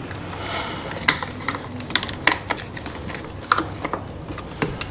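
Scattered light clicks and metal taps, about five or six sharp ones spread out, from tools and parts being handled while a motorcycle battery is swapped.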